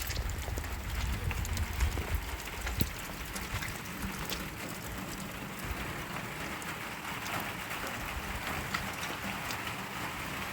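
Heavy rain falling steadily, with scattered sharp drop taps. A low rumble sits under it for the first few seconds.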